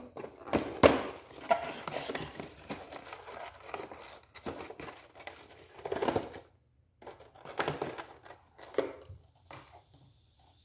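Cardboard box being opened and handled and a plastic bulb camera lifted out of it: irregular rustling, scraping and light knocks of cardboard and packaging, loudest about a second in and again around six seconds in.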